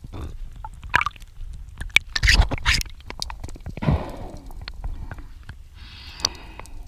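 Muffled underwater noise: irregular knocks, scrapes and short rushes of water and handling noise. The loudest rushes come about two and a half seconds in and again about four seconds in.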